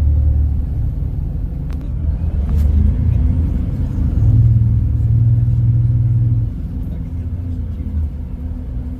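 Low engine and road rumble heard from inside a moving vehicle, with a steady hum that grows louder about four seconds in and eases off after about six and a half seconds.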